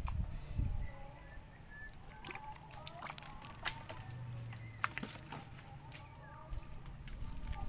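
Rubber boots squelching through soft mangrove mud, with a few sharp clicks, over faint bird calls.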